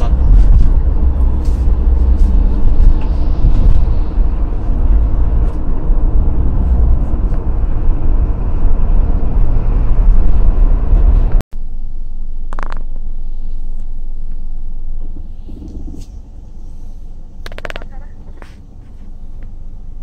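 Low road and engine rumble inside a moving vehicle in city traffic. About halfway through it cuts off abruptly to a much quieter, steady hum with a few short clicks.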